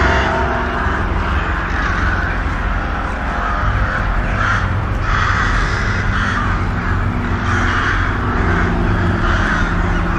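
Crows cawing repeatedly, a harsh call about once a second, over a steady low drone.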